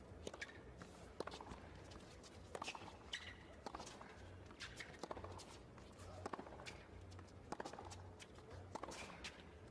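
Quiet tennis rally on a hard court: racket strikes and ball bounces as sharp pops every second or so, over a low background hum.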